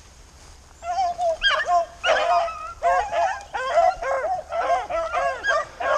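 A pack of rabbit-hunting hounds baying on a rabbit's trail, several dogs' voices overlapping in a near-continuous chorus that starts about a second in.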